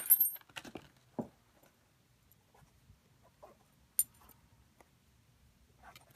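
Handling a small plastic parts bag and an AR-15 trigger group: a short rustle and clatter at the start, then long quiet gaps broken by a few light metallic clicks as the steel trigger, hammer and disconnector are picked up and moved. The sharpest, brightest click comes about four seconds in.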